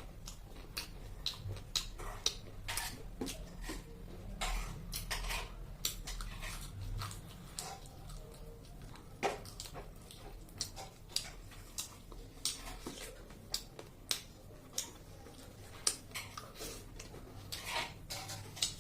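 Close-miked eating sounds: chewing and smacking on chicken feet, with irregular crackles and occasional clinks of a plate or utensil, over a low steady hum.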